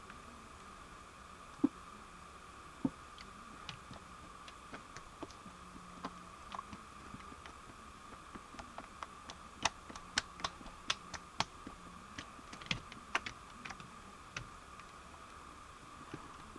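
Wet mud being handled and dripping: scattered small sharp clicks and taps, coming thick and fast in the middle, over a faint steady high hum.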